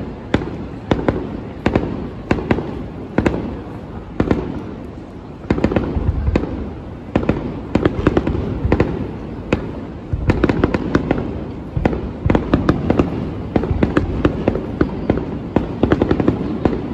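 Aerial fireworks bursting in quick succession: many sharp bangs and crackles over a continuous low rumble, growing denser about five seconds in and again about ten seconds in.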